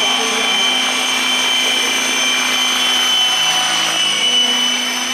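Radio-controlled scale model helicopter flying, with a loud, steady, high-pitched whine that dips slightly in pitch about four seconds in.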